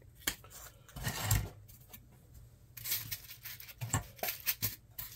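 Small foam-core trays of loose transistors being handled and set into a wooden cigar box: a short scrape about a second in, then a run of light clicks and knocks.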